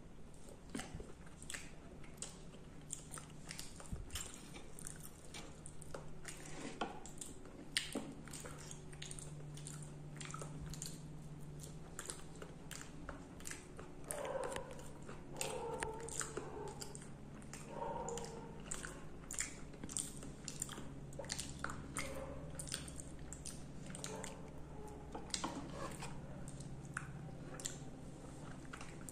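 Close-up eating sounds: a person chewing mouthfuls of puri with aloo dum, with wet smacking and many small mouth clicks in quick succession.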